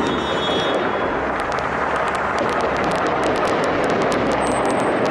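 Iranian Shahed-type delta-wing attack drone flying overhead, its engine a loud, steady noise, with many short sharp cracks throughout.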